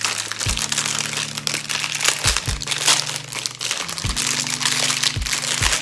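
Plastic packaging crinkling and rustling continuously as it is handled and pulled off the stand of a ring light.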